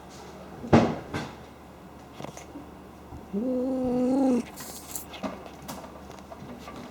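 Domestic cat making pig-like snorts during rough play: a sharp snort about a second in and a smaller one just after. About the middle comes a low, level cry held for about a second.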